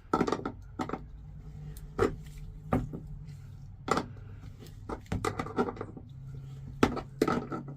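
Irregular knocks and clicks of hand tools and trim parts being handled during work under a pickup's dash, about nine in all, over a low steady hum that gets stronger about six seconds in.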